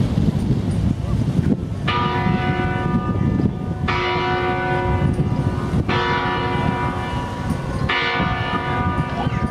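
Church bell in a cathedral bell tower tolling: four single strikes about two seconds apart, each ringing on and fading, over a steady low outdoor rumble.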